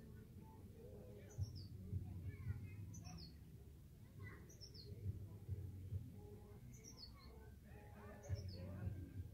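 A bird calling over and over: a short, high chirp of two or three notes stepping down in pitch, repeated about every second and a half. Beneath it runs a low rumble with occasional soft thumps.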